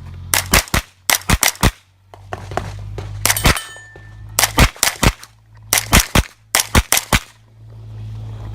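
JP Rifles GMR-15 9mm pistol-caliber carbine firing rapid pairs and short strings of shots, with brief pauses between groups as the shooter moves from target to target.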